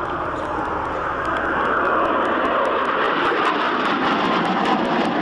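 Jet noise from a Harrier GR7's Pegasus turbofan engine as the jet flies its display: a loud, steady rushing sound that grows louder about two seconds in.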